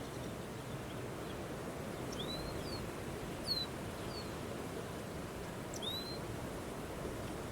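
Steady wind noise with a handful of short, sweeping bird chirps, the loudest about three and a half seconds in.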